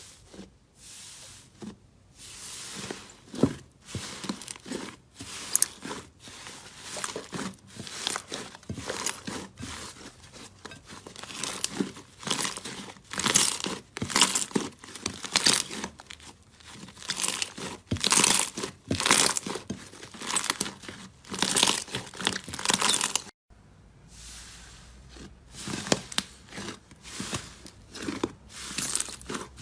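Slime being squeezed and pulled, making an uneven run of crackling, crinkling pops with a short break about three-quarters of the way through.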